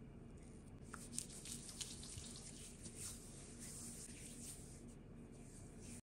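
Fingers scooping and squishing whipped body butter in a jar: a run of faint, soft crackles starting about a second in and going on irregularly, over a low steady hum.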